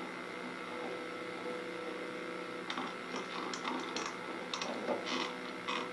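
Steady electrical hum from a television playing back an old videotape. In the second half, a scatter of faint short clicks sounds about every half second.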